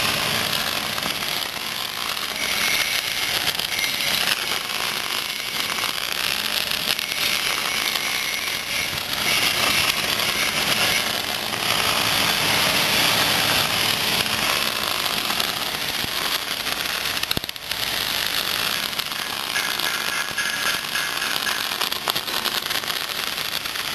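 Semi-automatic (MIG) welding arc crackling and sizzling steadily as the wire feeds, breaking off briefly once about two-thirds of the way through.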